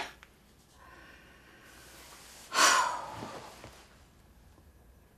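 A person's short, sharp exhale about two and a half seconds in, loud against otherwise quiet room tone.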